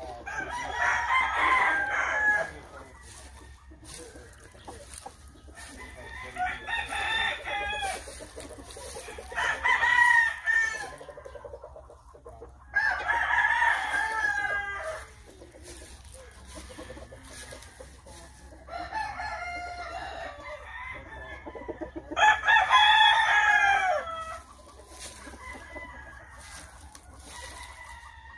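Kelso gamecocks crowing, about six long crows one after another, some loud and close and some fainter from roosters farther down the pens.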